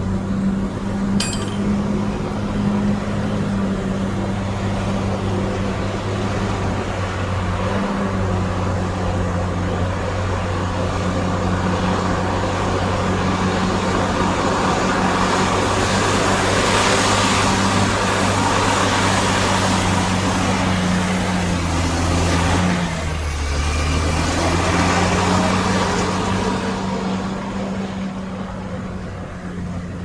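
Heavy earthmoving equipment's diesel engine running steadily under load, with a short metallic clink about a second in and the engine note dipping briefly about three-quarters of the way through.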